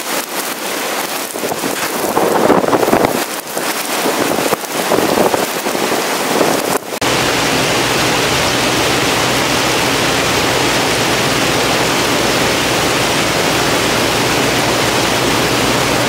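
Strong wind gusting across the microphone in heavy rain, rising and falling in swells. About seven seconds in it switches abruptly to a steady, even hiss of heavy rain mixed with hail pelting pavement.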